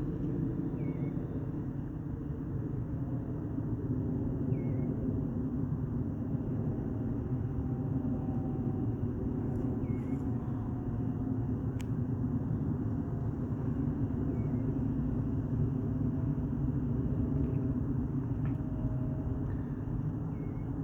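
Steady low engine rumble with a faint whine above it, holding even throughout.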